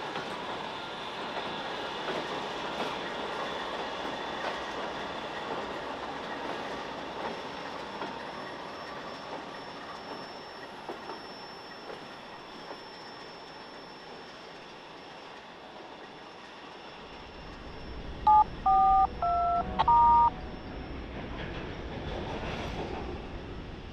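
A long freight train rolling on jointed street track, creaking and clattering as it slowly grows fainter. Near the end a low rumble comes in, and about 18 seconds in there are four loud two-tone keypad beeps (DTMF) in quick succession.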